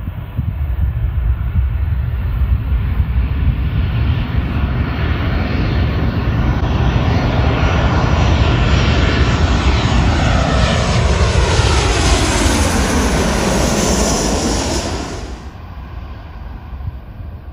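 An airplane's engines running loud as it passes close by, with a whine sliding down in pitch as it goes past. The sound drops off suddenly near the end, leaving a lower rumble.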